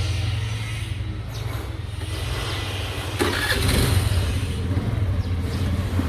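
Motorbike engine running at idle with a steady low rumble, swelling briefly a little over three seconds in.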